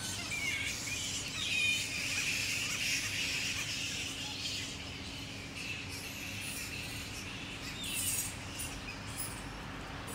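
A roosting colony of flying foxes (fruit bats) chattering and squabbling in the trees, a dense, continuous din of high squeaks and screeches from many animals at once, swelling around two seconds in and again about eight seconds in. The colony is waking up at dusk before flying out to feed.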